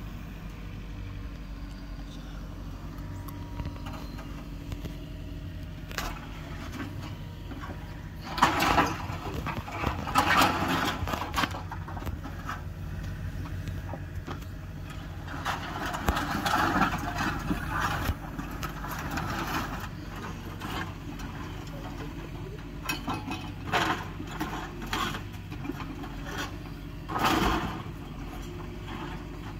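Mini excavator's diesel engine running steadily, with repeated loud crashes and scrapes of corrugated sheet-metal siding and lumber as the structure is torn apart: several clusters of crashes about a third of the way in and in the middle, and two more sharp ones near the end.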